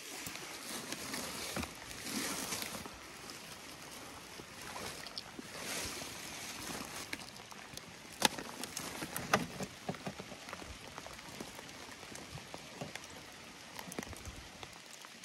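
Dry leaves and leaf mold rustling and crunching as a hand digs through them in a plastic tote, with a couple of sharp clicks or knocks about eight and nine seconds in as a wire-mesh cage is pulled out.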